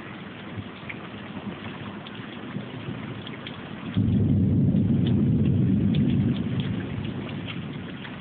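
Steady rain falling, with scattered drops ticking, and a low thunder rumble that comes in suddenly about halfway through, holds for a couple of seconds and then eases off.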